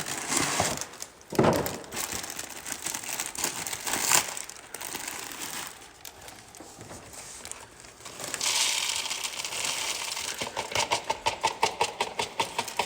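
Crinkling and rustling of a plastic cereal bag being handled, with a run of rapid light ticks in the second half.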